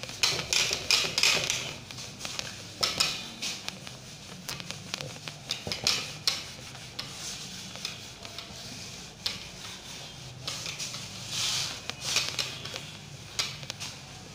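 Chalkboard being wiped clean: a series of irregular rubbing strokes across the board surface.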